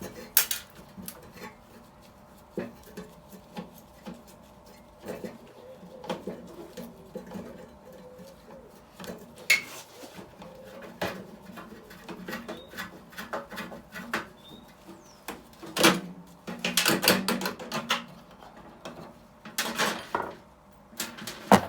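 Scattered metallic clinks, knocks and clattering of a microwave oven being dismantled by hand, its sheet-metal casing, parts and tools being handled, with busier runs of rattling in the last several seconds.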